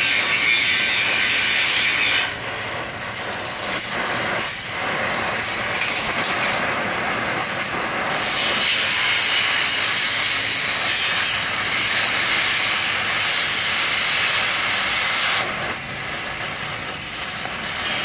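Oxy-acetylene torch flame hissing steadily as it heats a steel padlock. The hiss drops softer about two seconds in, grows loud again around eight seconds, and softens again near the end.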